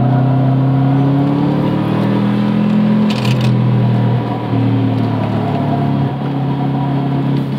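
Car engine heard from inside the cabin while driving on a circuit: its note climbs over the first couple of seconds, then drops sharply twice. A short hiss about three seconds in.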